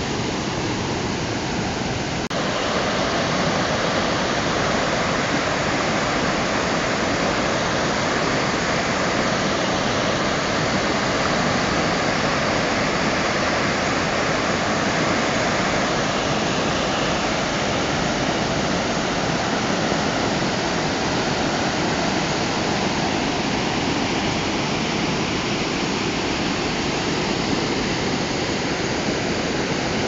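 Creek rapids rushing and churning over large boulders: a steady, full roar of white water. A click about two seconds in, with a small step up in level.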